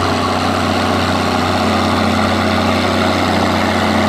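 Minneapolis-Moline farm tractor engine running steadily under load while pulling a weight-transfer sled, with an even, unchanging pitch.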